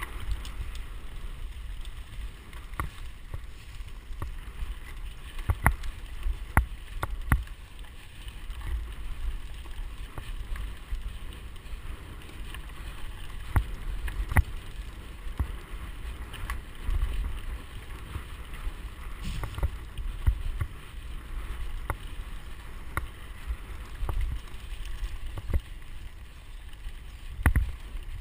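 Mountain bike ridden fast on a dirt forest trail, heard from a camera on the bike: a steady low rumble of wind on the microphone and tyres on dirt, with scattered sharp knocks and rattles as the bike jolts over bumps.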